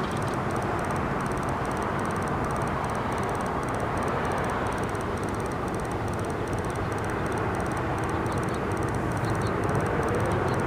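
Norfolk Southern diesel-electric freight locomotives running, a steady rumble that grows slightly louder near the end.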